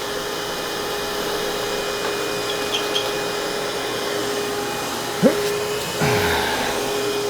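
A steady motor hum with a constant whine. About five seconds in there is a short rising squeak, and a second later a low, falling groan over a louder rush of noise.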